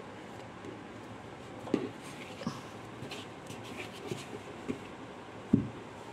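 Soft knocks and rubbing from an upturned plastic bowl being handled on a carpet: about five light taps, the loudest near the end.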